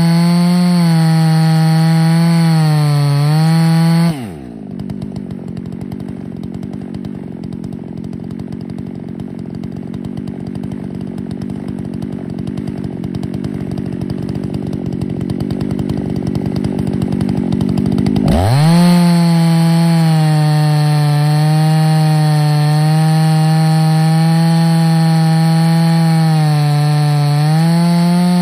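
Ported Husqvarna 288XP two-stroke chainsaw on an Alaskan mill, running at full throttle through a white oak log, its pitch wavering slightly under the load of the cut. About four seconds in it drops suddenly to idle. It idles for about fourteen seconds, then revs steeply back up to full throttle and carries on cutting.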